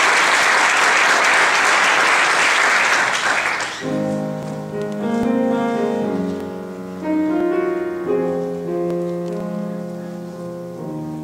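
Audience applauding for nearly four seconds, then a piano begins a song's introduction with held chords that change about once a second.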